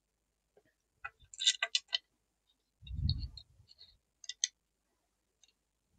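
Short light clicks and taps with one dull thump, from handling a takedown longbow's limbs and riser while fitting them together. A cluster of clicks comes about a second in, the thump near three seconds, and a couple more clicks a little later.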